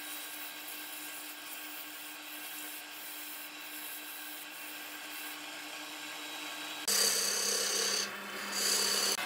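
Wood lathe running with a steady hum while sandpaper is held against the spinning wooden spindle, giving a steady sanding hiss. About seven seconds in it turns to louder rubbing as a wad of wood shavings is pressed against the spinning wood to burnish it, easing briefly before rising again.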